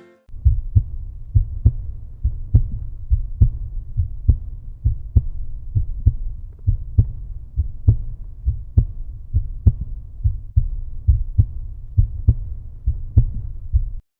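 Outro music: a deep bass line pulsing with a steady kick-drum beat, strong beats a little under a second apart with lighter ones between, cutting off abruptly near the end.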